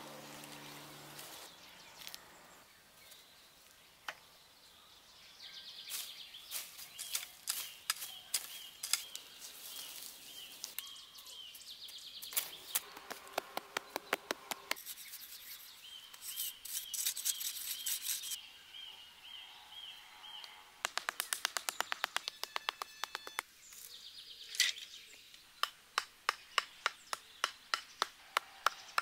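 Repeated knocks and scraping from work in loose earth. Near the end comes a steady run of knocks, about three a second, as a bamboo stake is driven into the ground with a mallet. Birds chirp in the background.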